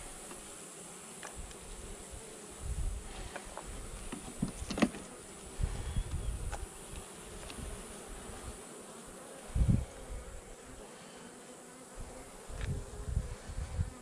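Honeybee colony buzzing over an open hive's frames, with a few sharp clicks of the hive tool against the frames and occasional low thumps.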